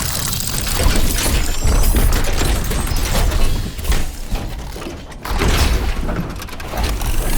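Film sound design of a giant robot transforming: dense mechanical clicking and ratcheting with metal clanks over heavy low thuds. It eases off about five seconds in, then builds again.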